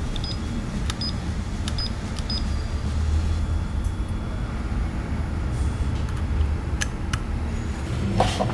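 Steady low hum with scattered light clicks, a few brief high tones in the first few seconds, and a sharper cluster of clicks near the end.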